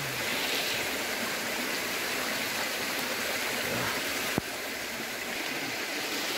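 Steady rain falling, an even hiss, with a single short click about four and a half seconds in.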